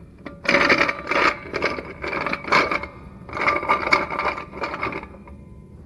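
Floor jack being worked under a car: about five rasping, squeaky metal strokes, roughly one a second.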